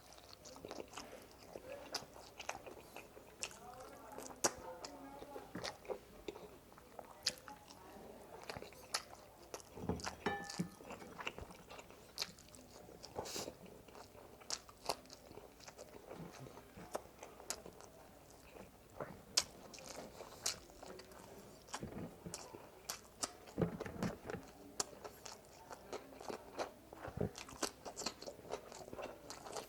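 Close-miked eating: biting into and chewing spicy frog legs, with many short, sharp crunches scattered throughout.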